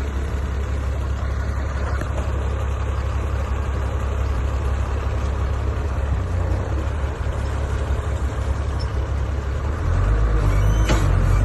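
Construction machine's engine running steadily, getting louder about ten seconds in as it is worked harder, with a clank near the end.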